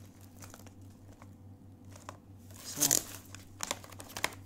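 Clear plastic blister packaging of diecast model cars crinkling as it is handled, with a loud crackle about three seconds in and a few sharp clicks after it.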